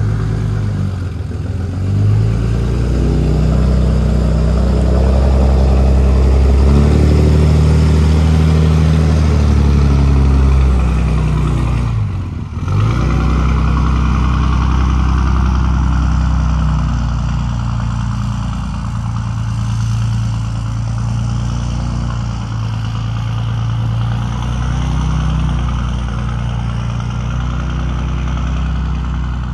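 Pickup truck engine running under load as it drives across a snowy slope, its pitch rising and falling with the throttle, with a brief dip about twelve seconds in.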